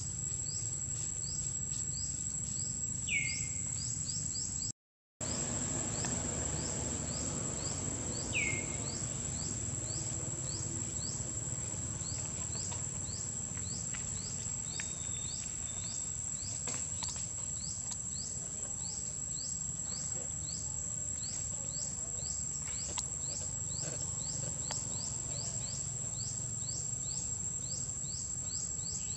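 Outdoor insect chorus: a steady high-pitched drone with a rapid run of short falling chirps, a few a second, over a low background rumble. Twice, a louder falling call rises above it. The sound cuts out for a moment about five seconds in.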